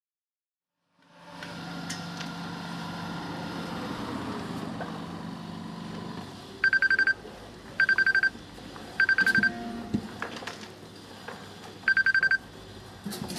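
Excavator engine running, then an in-cab proximity warning alarm sounds four short bursts of rapid, trilling high beeps, each about half a second long. The first three come about a second apart and the fourth follows after a longer gap. The alarm is the Safety Shield system signalling that a pedestrian has been detected close to the machine.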